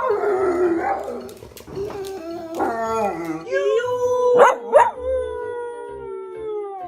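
Domestic dog howling in wavering, voice-like sounds, ending in one long drawn-out note that slowly sinks in pitch.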